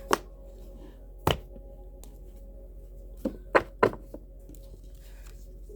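Sharp taps on a tabletop: one near the start, one a little over a second in, then a quick run of four in just under a second after about three seconds. A faint ambient music drone runs underneath.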